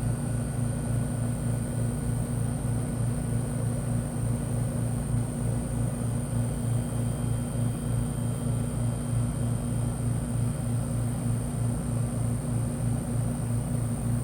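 Rheem Endeavor 1.5-ton central air conditioner condenser running steadily, its Copeland compressor and Broad Ocean fan motor giving a low hum that pulses a few times a second.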